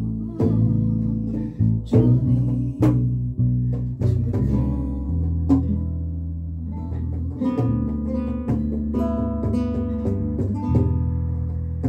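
Music with a plucked guitar playing a run of notes over a steady bass.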